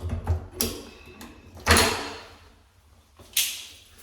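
Metal door hinge being worked loose and popped out: a few quick knocks and clicks at the start, a loud clank just under two seconds in, and another knock near the end.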